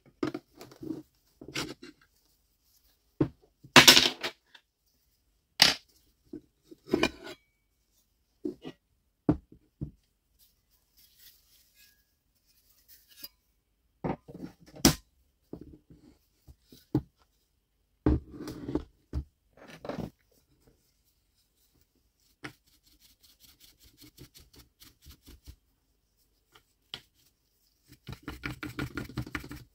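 Clicks, knocks and clatters of metal and plastic parts and tools being handled and set down on a wooden table while a cordless circular saw is taken apart, the loudest a clatter about four seconds in. Near the end comes a quick run of scrubbing strokes as a small brush cleans the saw's blade guard.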